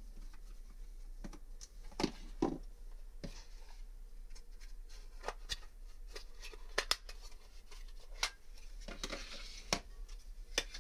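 Plastic case of a Kaiweets KM601 multimeter being handled and pried open after its screws are out: scattered sharp plastic clicks and knocks, with a short rustling scrape about nine seconds in.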